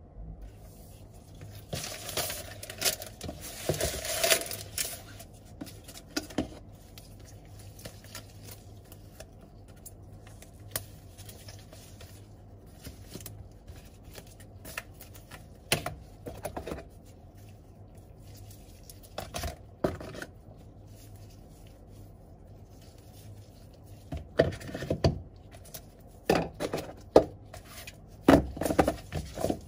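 Paper and cardboard packaging handled by gloved hands: rustling, scraping and light knocks in separate bursts as a paper insert is worked out of a cardboard box.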